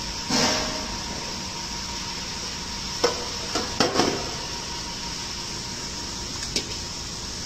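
A few light knocks and clinks of stainless steel bowls as seasoning is tipped from one onto raw beef in the other, clustered about three to four seconds in, over a steady background hiss and hum.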